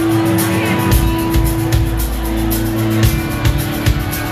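Live rock band playing: electric bass, electric guitars and drums keeping a steady beat.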